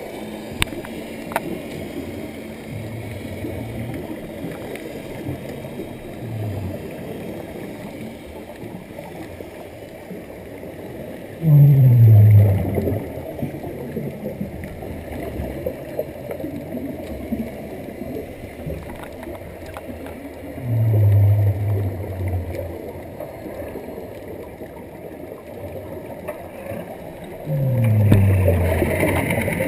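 Scuba regulator exhaust bubbling as a diver breathes out underwater, heard as three loud, low, gurgling bursts about eight seconds apart over a steady underwater hiss.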